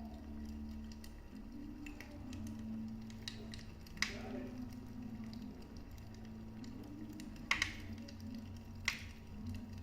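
Wood fire crackling in a fireplace: small ticks over a steady low rumble, with sharp pops about four seconds in, twice in quick succession about seven and a half seconds in, and once more near nine seconds.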